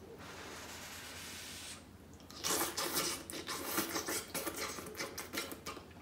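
A person eating ramen noodles with a plastic fork from a plastic food container, slurping and chewing. A soft steady hiss runs for about the first two seconds, then a run of irregular wet clicks and smacks.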